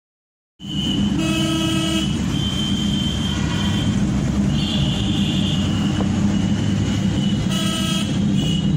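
Road traffic with car horns honking: a horn blares about a second in and again near the end over the steady rumble of engines and tyres, with shorter, higher horn beeps in between.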